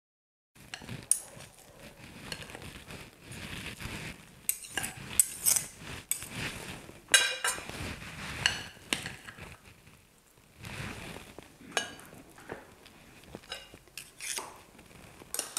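Metal spoon and cutlery clinking and scraping against a glass baking dish and a plate as a portion of sweet-potato and ground-beef casserole is served and cut, with a series of sharp clinks among softer scrapes.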